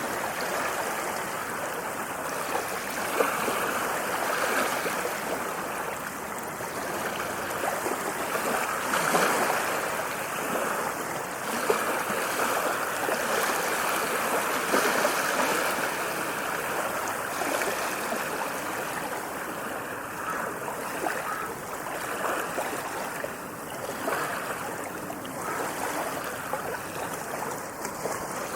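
Ocean waves washing in a continuous rush of water, swelling and easing every few seconds.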